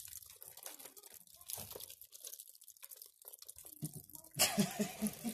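Crackling and crinkling of a glue-stiffened thread shell around a balloon as it is pressed and picked at, in many small sharp clicks. A louder rushing burst comes near the end.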